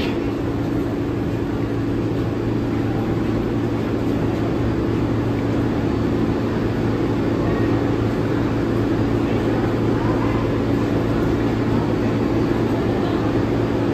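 R188 subway train standing at a station platform with its doors open, its on-board equipment giving a steady low hum with a constant drone.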